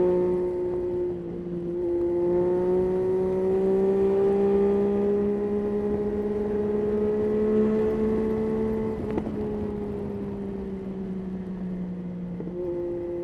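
Yamaha Tracer 9's inline three-cylinder engine running under way, its pitch climbing slowly and then easing off. There is a brief dip about a second in, a sharp click about nine seconds in, and a step in pitch near the end.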